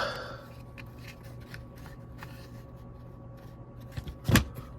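Small plastic parts of a car heater control unit being handled and fitted by hand: light clicks and rattles, with a sharp click at the start and a louder knock near the end, over a steady low hum.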